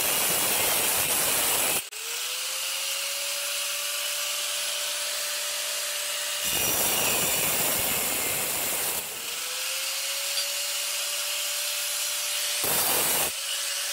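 Angle grinder with a cutoff wheel cutting through a steel fence post bracket. It makes two long, harsh cuts: the first ends about two seconds in, the second runs from about six and a half to nine seconds in. After each cut the free-running motor's whine rises in pitch and then holds steady. Near the end the wheel touches the metal again briefly.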